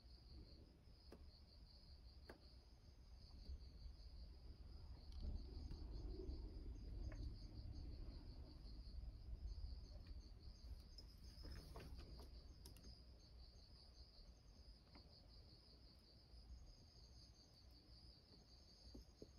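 Faint, steady chirping of insects, a quick pulsing high trill that runs on without a break. A low rumble swells about five seconds in and fades out again, and a few faint ticks are scattered through.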